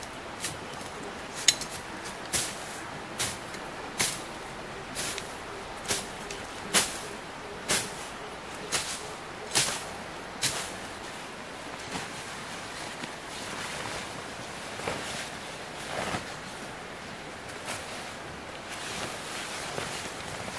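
Machete blade chopping into the forest floor: about a dozen sharp blows, roughly one a second, stopping about ten seconds in. Fewer, softer knocks follow.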